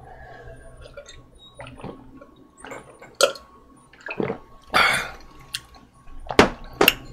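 A man gulping water from a drinking glass: a string of short swallowing and mouth sounds, the louder ones about five and six and a half seconds in.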